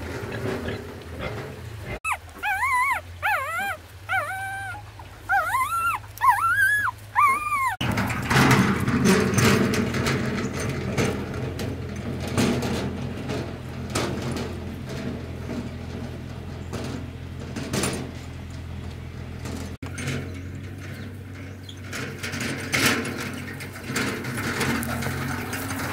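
A dog whimpering: about eight short, high, rising-and-falling whines over some six seconds, then a steady background with light scattered clicks.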